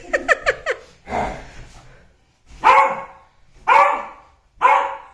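Beagle barking in play: a quick run of short yips in the first second, then three loud barks about a second apart.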